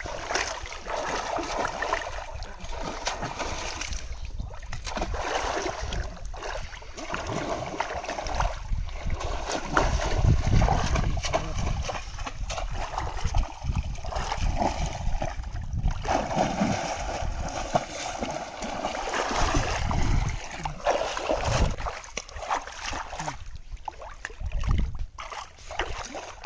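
Muddy pond water splashing and sloshing as a person crouched waist-deep churns it with his arms and body, irregular and loud, easing into quieter sloshing near the end.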